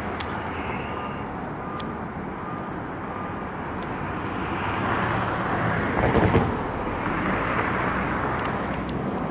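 Road traffic: a vehicle passes, its noise building to a peak about six seconds in and then easing, over a steady background hum.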